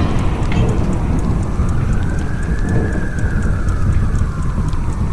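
A siren wailing slowly, rising and falling in pitch over a few seconds, over a heavy low rumble.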